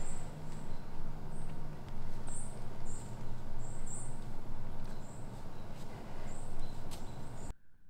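Outdoor woodland ambience: a steady noisy background with scattered faint clicks, and a string of short, very high, thin chirps about once a second. The sound cuts off abruptly near the end.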